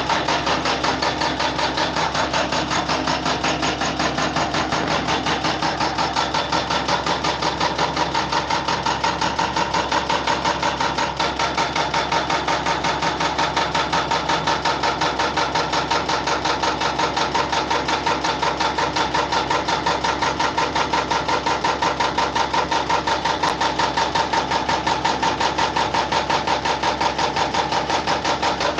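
A machine running continuously with a loud, rapid and even mechanical beat that does not change.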